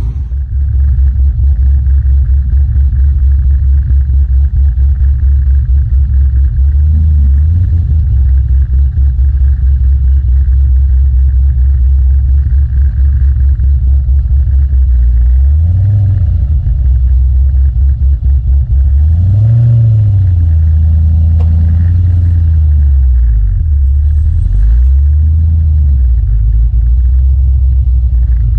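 HSV GTS V8 and drivetrain heard from underneath the moving car, close to the rear differential: a loud, steady low rumble whose engine pitch rises and falls several times in the second half as the car speeds up and slows.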